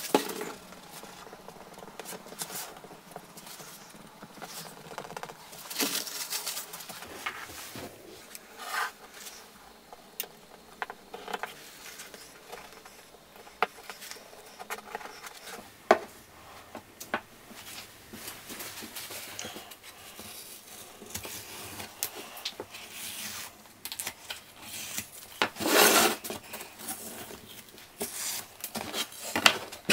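Hands handling thin pine frame strips on a workbench: scattered rubbing and scraping of wood on the bench top, with a few sharp knocks and clicks. A louder rasp of about a second comes near the end.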